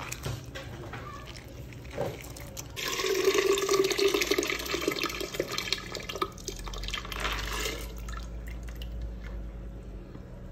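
Water splashing and pouring as soaked, skinned beans are rinsed and drained in a plastic bowl, then wet beans are tipped into a glass blender jar. It is loudest from about three seconds in and dies away near the end.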